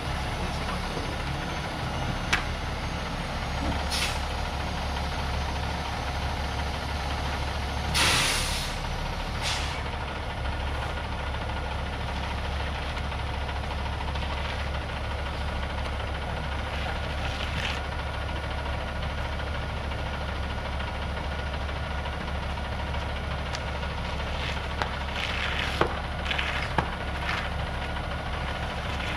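Ready-mix concrete truck's diesel engine running steadily, with a short hiss of air about eight seconds in and a few sharp clicks near the end.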